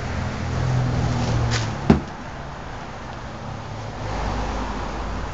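Potting soil poured from a plastic nursery pot into a large stoneware pot and worked in by hand, with a low hum under it for the first two seconds and one sharp knock about two seconds in.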